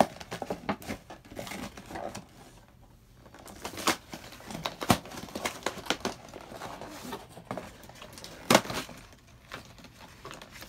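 Plastic packaging crinkling and plastic toy pieces clicking and knocking as they are handled, in irregular short rustles and taps, with two sharper knocks about halfway and near the end.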